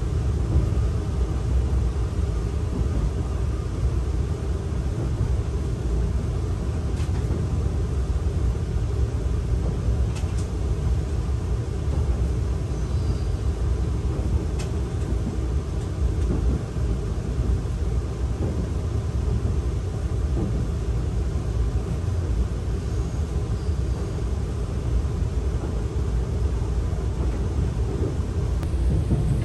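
Steady low rumble of the Saphir Odoriko E261-series electric express train running, heard from inside the passenger cabin, with a few light clicks.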